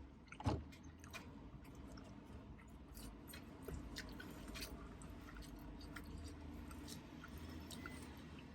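Faint chewing of food: a steady run of small mouth clicks and soft smacks, with one louder knock about half a second in.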